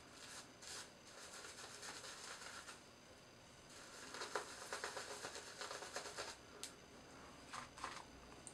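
Shaving brush scrubbing lather into a beard: faint, scratchy rubbing in quick strokes, with a brief pause about three seconds in.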